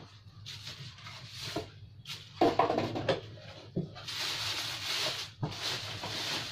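Clear plastic bag around a new printer rustling and crinkling as hands pull it open inside the cardboard box, with a brief louder sound about two and a half seconds in.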